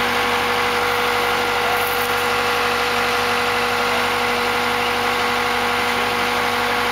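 Engine idling steadily, a constant hum that holds one pitch throughout.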